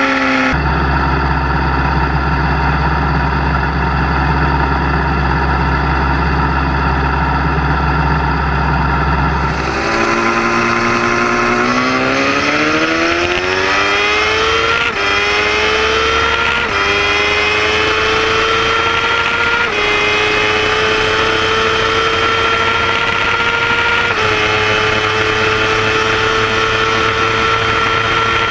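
Sport motorcycle engine heard from a bike-mounted camera: a steady drone at constant speed for about nine seconds, then the engine goes to full throttle and pulls hard up through the gears. Its pitch climbs and dips slightly at each of several upshifts, the acceleration phase of a roll race from rolling speed.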